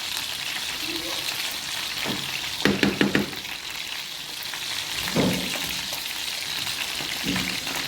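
Steady frying sizzle from the stove. A quick run of clinks and clatter of metal cookware comes about three seconds in, with single knocks about five and seven seconds in.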